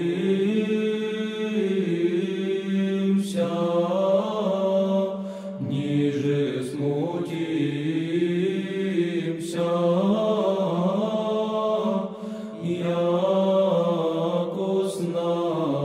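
Orthodox church chant: several voices singing slow, held chords in phrases a few seconds long, with short breaks between phrases.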